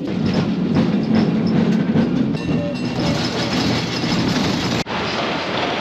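A San Francisco cable car running along its line: a steady low rumble with scattered clicks. It cuts off abruptly near the end, giving way to an even rushing noise.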